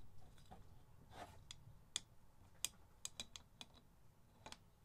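Faint light clicks and taps of small metal parts in a pit-bike race cylinder head as they are lined up and fitted by hand, scattered, with most of them from about two seconds in.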